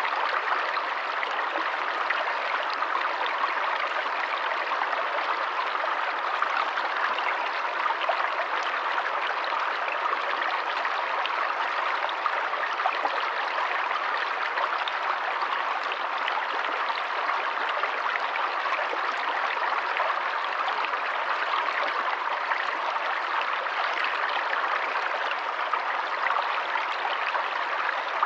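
A forest stream running steadily, water splashing and trickling over stones in an even rush.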